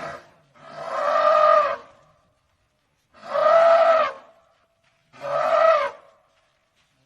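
African elephant trumpeting: three loud calls of about a second each, with pauses between them, following the tail end of an earlier call.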